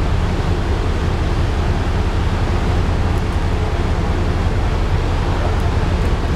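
Steady rush of churning water in the narrow gap between the cruise ship's hull and the concrete lock wall, over a deep low rumble.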